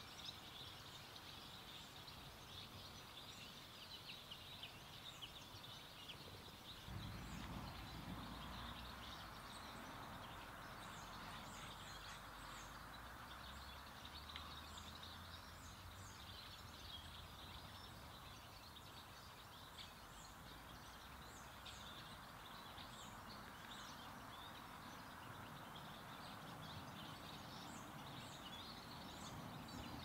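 Faint outdoor ambience with distant small birds chirping. A low rumble comes in about seven seconds in.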